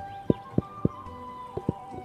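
Long wooden pestle pounding into a mortar: dull thuds, three in the first second, then after a short pause a quicker run of three, over soft background music.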